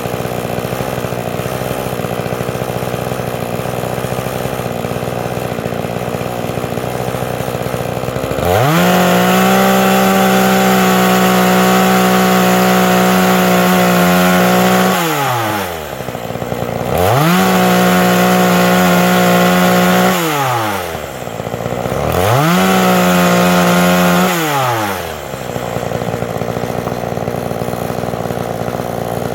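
Forest King two-stroke chainsaw idling, then revved up to full throttle three times: once for about six seconds, then twice more for about three seconds each. Each time the pitch falls back to idle.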